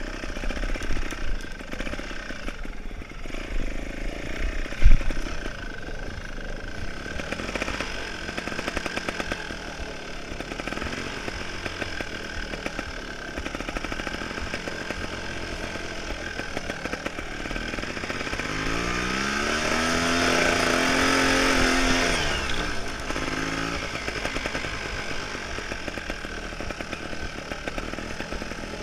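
Beta Rev 3 trials motorcycle engine running as the bike is ridden over rough ground, on and off the throttle. A single sharp knock comes about 5 seconds in. Later the engine revs up, rising in pitch and loudness for a few seconds, then drops back.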